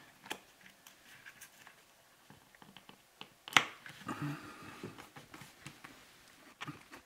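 Scattered light clicks and taps of fingers handling and pressing thin peel-and-stick metal tile pieces onto a backsplash, with one sharper click about three and a half seconds in.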